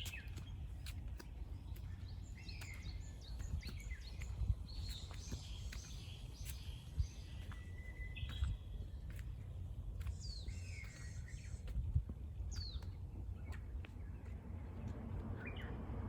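Small songbirds chirping and calling in quick short notes and down-sweeping calls throughout, over a steady low rumble of wind, with scattered sharp clicks.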